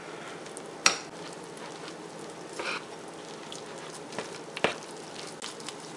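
A fork stirring a stiff cheese dough of melted mozzarella, almond and coconut flour, egg and chives in a bowl: a soft, crackly scraping, with a few sharp clicks of the fork against the bowl, the loudest about a second in.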